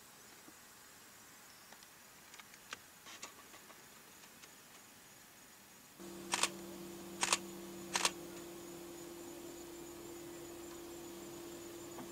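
Three sharp camera shutter clicks about a second apart, over a steady low engine hum from an idling vehicle that starts about halfway through.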